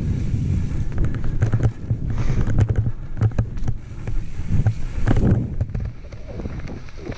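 Riding noise from a mountain bike descending rough singletrack: wind buffeting the microphone and tyres rumbling over dirt and rock, with frequent sharp rattles and knocks from the bike over the rough ground, easing a little near the end.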